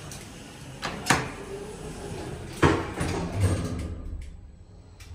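Schindler lift's sliding car doors closing, with two sharp knocks about a second and a half apart; the louder second knock comes as the doors shut.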